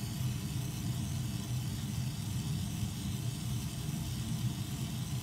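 Oxygen-and-gas jeweler's torch turned up to a large flame, burning with a steady low rushing sound and a faint hiss as it heats a brass bracelet to hard-solder temperature.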